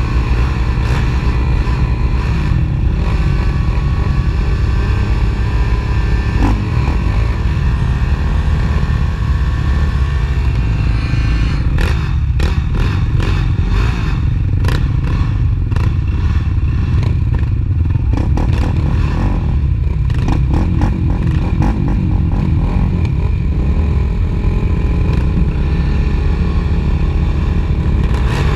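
ATV racing quad engines running and revving, their pitch shifting up and down over a heavy low rumble. A stretch of clattering and knocking comes in from about twelve seconds in until about twenty-one seconds.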